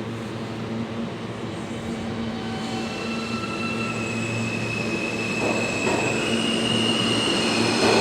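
New York City subway train approaching on the BMT Broadway Line, its rumble growing steadily louder. High steady wheel squeals join in from about the middle.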